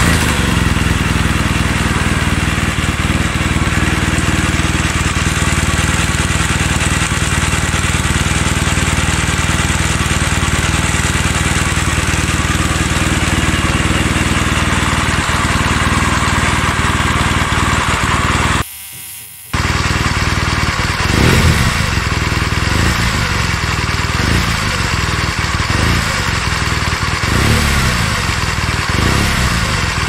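BMW R1200GSA LC liquid-cooled boxer-twin engine idling steadily in neutral, warm, with a ticking noise that gets more obvious the hotter the engine gets; the shop is checking the valve clearance as the cause. The sound drops out for about a second just before the middle.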